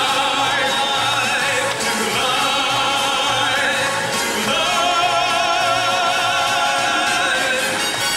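Stage-show song: voices hold long notes with vibrato over orchestral backing. A new held chord slides in about halfway through.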